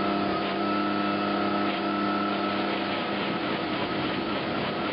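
Tracked tractor's engine held at steady high revs, powering a hydraulic ditch-cleaning head that churns the water and sprays out spoil. A steady high whine runs over a wash of water noise.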